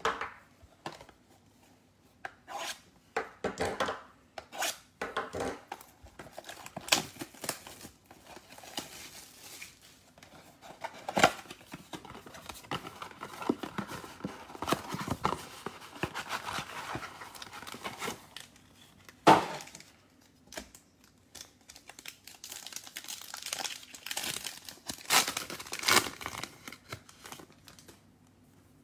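Cardboard blaster box of Panini Mosaic football cards being torn open by hand, a run of short rips and knocks with two sharp loud ones. Its foil-wrapped card packs crinkle and tear in longer stretches.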